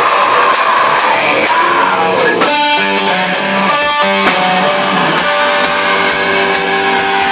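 Metal band playing in rehearsal: electric guitar chords ringing out over drums and cymbals.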